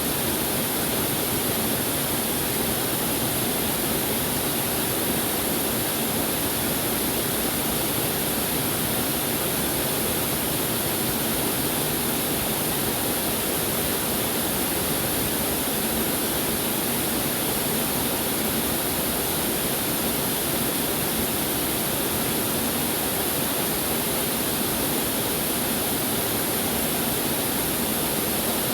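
Waterfall pouring steadily, a constant rushing of falling water.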